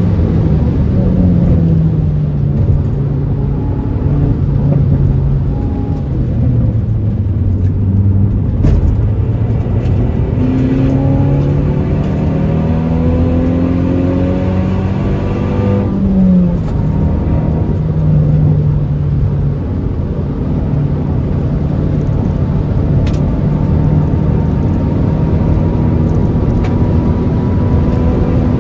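Hyundai i20N's turbocharged 1.6-litre four-cylinder engine driven hard on a track lap, with road and wind noise. The revs rise and fall with gear changes, and a long climb in revs past the middle drops off sharply.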